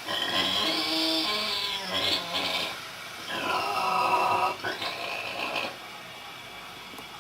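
Vietnamese pig snoring in its sleep: two long snores about three seconds apart, each followed by a shorter breath, then quieter near the end.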